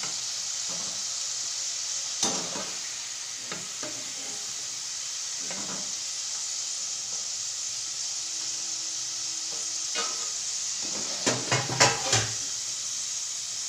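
Batter-coated potato sticks deep-frying in hot oil, a steady sizzle. A steel slotted spoon knocks and scrapes against the pan now and then, with a quick run of knocks near the end as the golden fries are lifted out.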